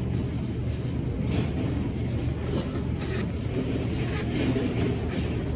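Steady low rumble of airport ambience, with scattered light clicks and knocks.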